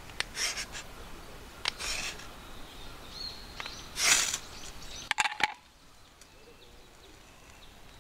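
A ferrocerium rod scraped with a steel striker three times, each a short rasping scrape, showering sparks onto wood shavings to light them. A few sharp clicks follow, with faint bird calls behind.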